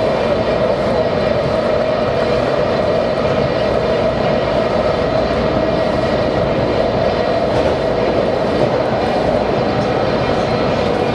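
Washington Metro Red Line train running steadily along the track, an even rumble and rush of noise with a steady droning tone throughout.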